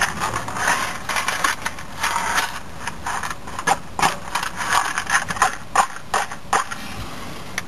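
A small cardboard box being handled and rummaged through by hand while the fire is being lit on a miniature steam locomotive: a run of irregular scrapes, clicks and rustles, several a second. They stop shortly before the end, except for one last click.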